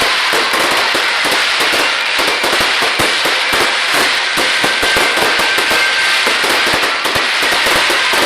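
Fireworks crackling continuously: a dense, unbroken spray of small rapid pops with no pause.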